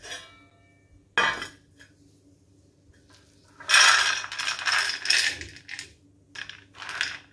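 Soaked, towel-dried black chickpeas poured from a cloth into a stainless steel plate, rattling on the metal in a dense shower from about halfway in, then in a few shorter spills near the end. There is a single sharp knock about a second in.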